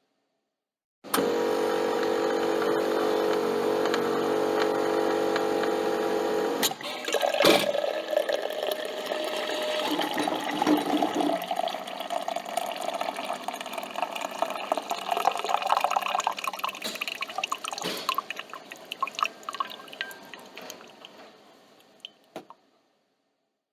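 Coffee machine's pump humming steadily. After a knock about six seconds in, coffee streams into a cup with a pitch that rises as the cup fills, then thins to drips and stops.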